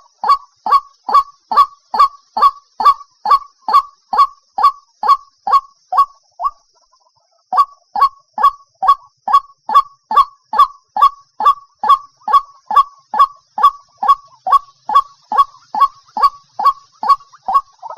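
White-breasted waterhen calling: a loud, monotonous series of short, harsh notes, about three a second, broken by a pause of about a second and a half some six seconds in.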